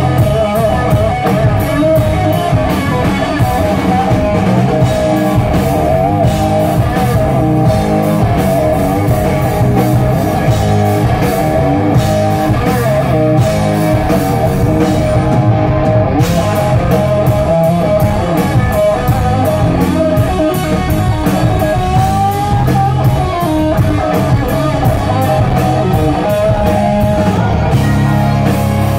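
Live rock band playing loudly: electric guitars, bass guitar and drum kit, with wavering, bending lead-guitar lines over a steady beat, heard from the audience in a club.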